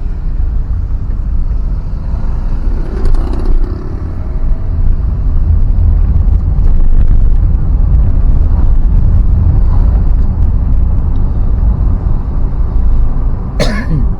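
Steady, loud low rumble of a vehicle moving along the road, with one sharp knock near the end.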